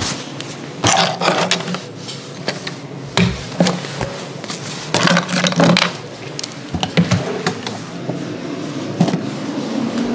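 Cut-throat razor scraping through beard stubble on the skin in short, irregular strokes, several strokes in a row with brief pauses between them.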